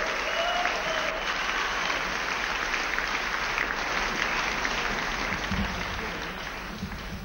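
Live concert audience applauding at the end of a song, the clapping dying away near the end.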